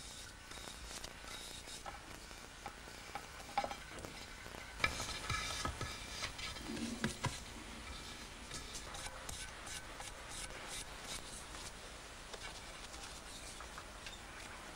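Spatula scraping and working rice-paste lacquer (nori-urushi) over washi paper and on a mixing board, soft and steady, with a few light knocks between about four and seven seconds in.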